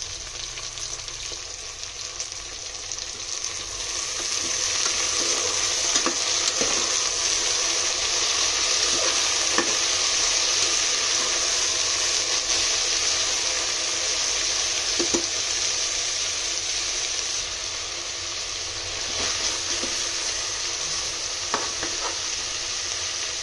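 Chopped vegetables frying in hot oil in a pressure cooker, a steady sizzle that grows louder a few seconds in, while a metal ladle stirs them with occasional scrapes and taps against the pot.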